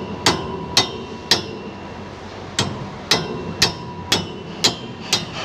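Hammer striking metal on a truck's drivetrain, nine sharp blows about two a second with a short pause after the third, each with a brief metallic ring. The part is tight and has never been undone, so it is being knocked loose.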